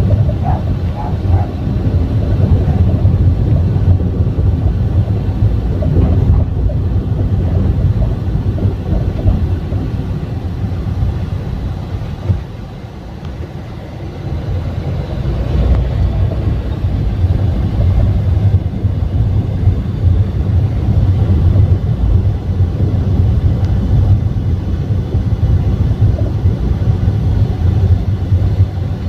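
Honda Brio RS driving, heard from inside the cabin: steady low road noise and tyre rumble that drops for a moment about halfway, then comes back up. This is the excessive road noise the owner complains of.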